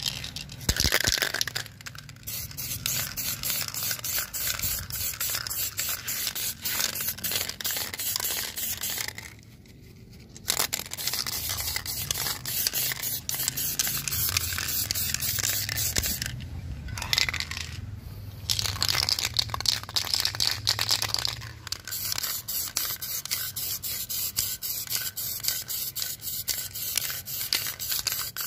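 Aerosol spray can of Diton premium spray paint hissing as clear coat is sprayed on, in long passes with two brief breaks, about a third of the way in and again past halfway.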